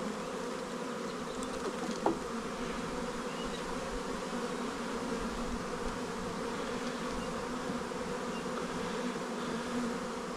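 Honeybees from an opened package buzzing steadily in a low drone. A single sharp click about two seconds in.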